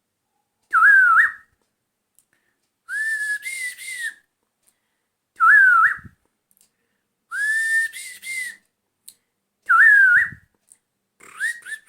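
A person whistling an imitation of a laughing thrush's call: five phrases a second or two apart, short up-and-down phrases taking turns with longer rising-and-falling ones, then a quick run of short notes near the end.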